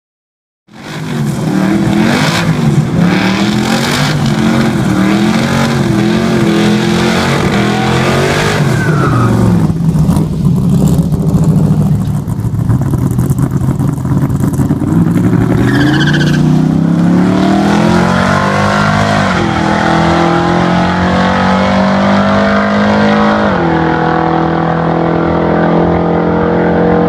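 Car engine running hard, its pitch rising and falling again and again as it revs, with a sudden drop in pitch near the end before it settles at a steady note.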